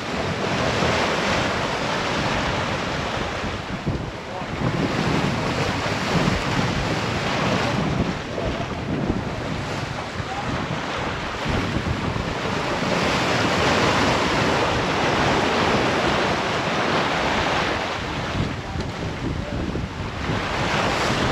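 Wind buffeting the microphone over the rush of open-ocean water around a sailboat under way, swelling and easing every few seconds.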